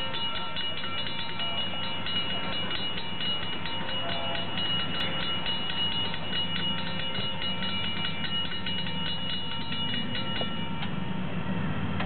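Railroad grade-crossing bells ringing with a rapid clang of several bell tones, which stop about ten and a half seconds in. A low diesel locomotive rumble builds toward the end.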